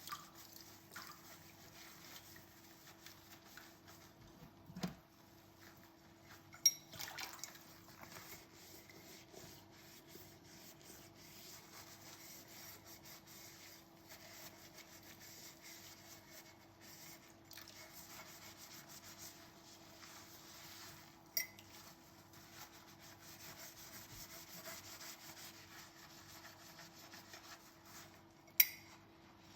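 Dishes being washed by hand: quiet scrubbing and rubbing over crockery, broken by a few sharp clinks of dishes, the loudest near the end. A faint steady hum runs underneath.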